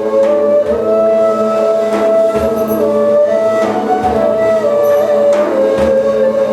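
Jaw harp (ağız kopuzu) playing a steady drone with a slow overtone melody stepping up and down above it, with occasional sharp plucks.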